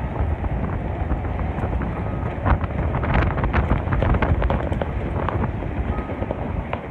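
Wind buffeting the microphone over a steady low vehicle rumble. Scattered clicks and scuffs come through the middle as a worker pulls on rubber boots and work gloves on a steel grating platform.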